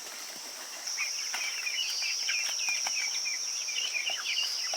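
Steady high-pitched insect buzz, with a busy chatter of quick bird chirps joining in about a second in.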